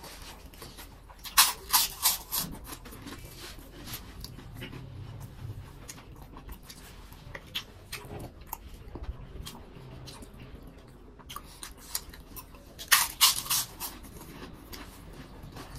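Close-miked chewing and lip-smacking of two people eating rice and pork by hand, made of many small wet mouth clicks. There are louder bursts of smacking about a second and a half in and again near the end.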